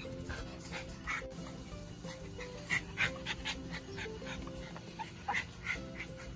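Dogs giving a series of short, high-pitched yips and whimpers while greeting, over light background music.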